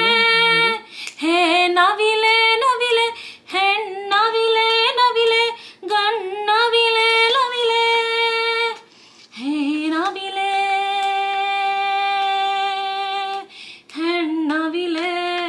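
A woman singing a melody unaccompanied, soothing a baby, in sustained phrases with short breaks; in the second half she holds one note for about three seconds.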